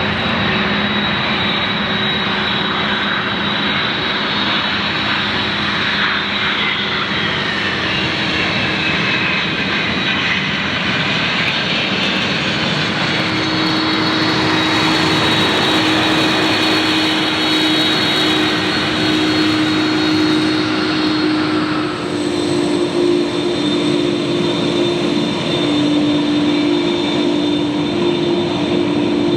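Jet airliner engines passing: a steady, loud engine noise with a high whine that falls in pitch, growing brighter past the middle and then dropping off suddenly about two-thirds of the way through, with a lower hum continuing.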